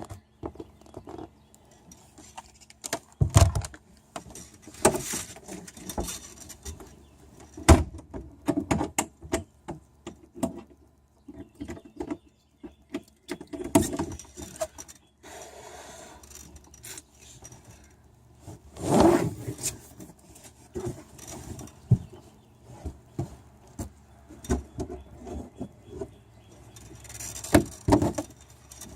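Irregular handling noises: scattered knocks, clicks, rattles and scrapes of things being moved about. There are louder sharp knocks about three and eight seconds in, and a longer scraping rush around nineteen seconds.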